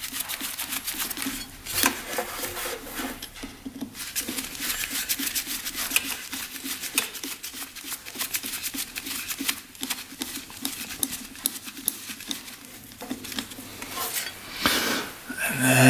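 Screwdriver working a carburettor hose clamp: a dense run of small metallic clicks, ticks and scrapes as the clamp is loosened and the parts are handled.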